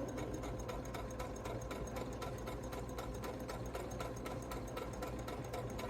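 Electric sewing machine running steadily while stitching, a motor hum with an even, rapid ticking of the needle.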